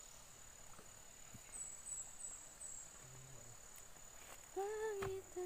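A steady, high-pitched insect drone with short chirps repeating over it. Near the end a louder pitched call rises and falls, lasting under a second, and a brief second one follows.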